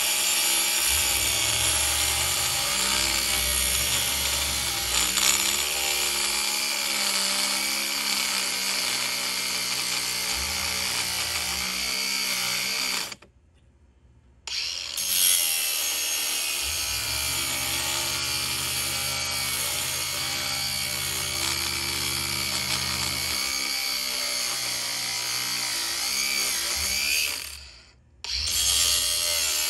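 A power tool's motor running continuously with a steady whine, with a deeper low rumble that comes and goes. The sound cuts out abruptly twice, near the middle and near the end.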